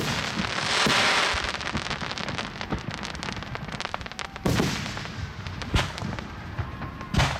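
Aerial fireworks shells bursting, with dense crackling throughout. There is a loud hiss about a second in and three sharp bangs from about halfway on, the last near the end.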